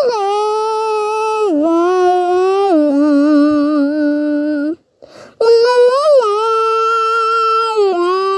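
A single voice holding long, sustained sung notes: a first phrase that steps down in pitch twice, a short break about five seconds in, then a second long held phrase with a brief upward bend.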